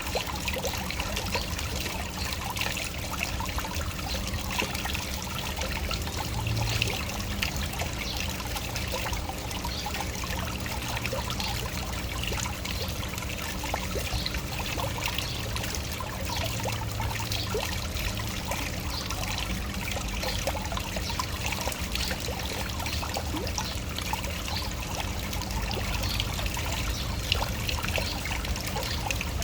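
Small waterfall splashing and trickling steadily, with a low rumble of falling water underneath.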